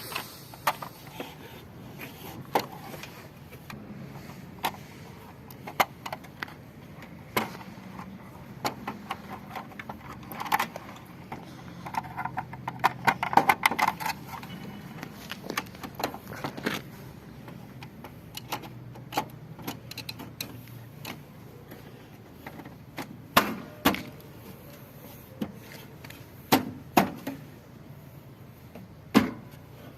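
Scattered metallic clinks, taps and knocks from hand tools and parts being handled during washing machine bearing repair work, with a busier clattering stretch around the middle.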